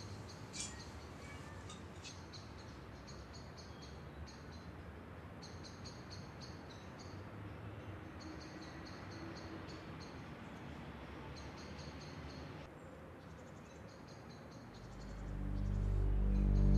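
Night-time insect chirping, like crickets, in repeated trains of high pulses over a faint background hiss. Near the end a deep, low music drone swells in and becomes the loudest sound.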